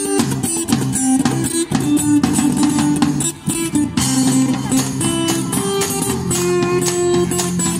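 Live band music: guitars strummed and picked over a steady beat, played through a small amplifier.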